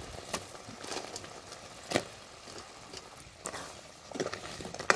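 Crab pieces going into a metal pot of bubbling curry masala and being stirred with a metal ladle: a few sharp knocks, the loudest about two seconds in, and busier ladle strokes near the end.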